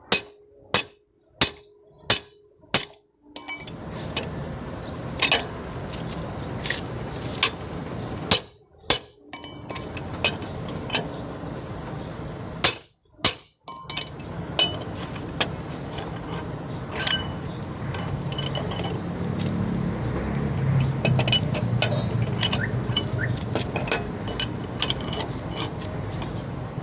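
Hammer blows ringing on a steel lug wrench fitted to a truck's wheel nuts: a quick run of sharp metallic clanks at the start, about one every two-thirds of a second, then single strikes a second or more apart. In the last third, lighter clinks of the wrench and socket on the nuts over a low steady rumble.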